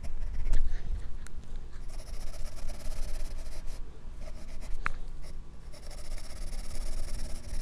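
Pencil scratching on drawing paper in sketching and shading strokes, picked up close by a microphone on the drawing wrist. The scratching grows denser about two seconds in and again near the end.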